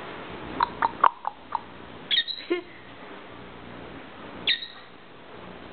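Pet parrot calling: a quick run of short, sharp chirps, then a call that sweeps steeply down in pitch about two seconds in, and a shorter downward-sweeping call near the end.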